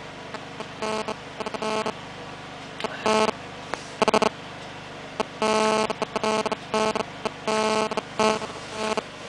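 Electronic buzzing interference in abrupt, irregular on-off bursts, a few tenths of a second to about a second long, most frequent from about five seconds on. It is the pulsing buzz that a nearby mobile phone's GSM signal induces in recording equipment.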